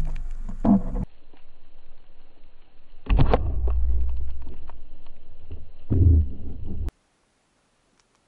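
Muffled underwater noise picked up by a camera mounted on a speargun: low rumbling water movement and a few knocks in bursts as a speared fish struggles on the shaft. The sound cuts off abruptly to silence about seven seconds in.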